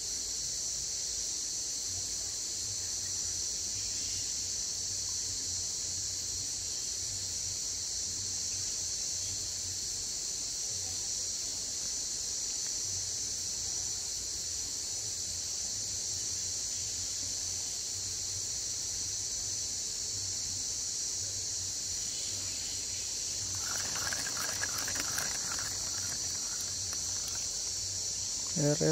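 Steady, unbroken high-pitched chirring of insects such as crickets or cicadas.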